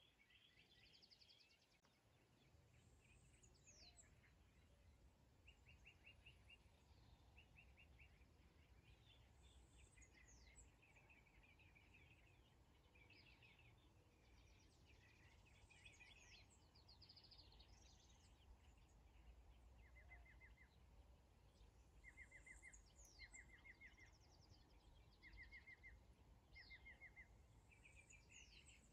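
Faint birdsong from several birds: short chirping trills, repeated about once a second near the end, and quick high whistles that fall in pitch, over a low steady rumble.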